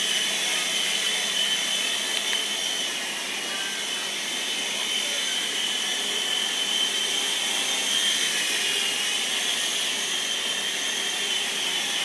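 Small toy remote-control helicopter in flight: its electric motor and rotor give a steady high-pitched whine that wavers slightly in pitch as it moves.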